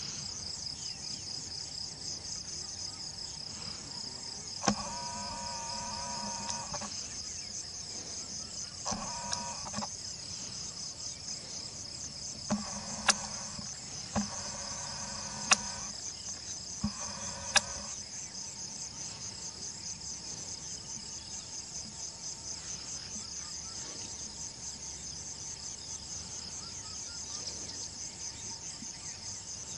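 Insects chirring steadily in a high, finely pulsing chorus. Between about five and eighteen seconds in, several short pitched calls and a few sharp clicks sound over it.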